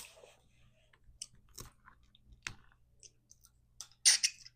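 Close-up eating of crab legs: chewing with scattered small clicks and cracks of shell being handled, and a louder crackle about four seconds in.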